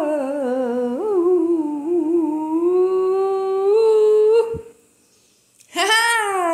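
A woman humming in long, wavering notes, the pitch climbing to a held note that stops about four and a half seconds in. After a short pause comes one more note that rises and then falls away.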